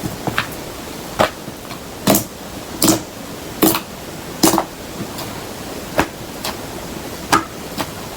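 PVA glue slime being pressed and squished by hand, giving a string of short sharp pops and clicks, roughly one every second, over a steady hiss.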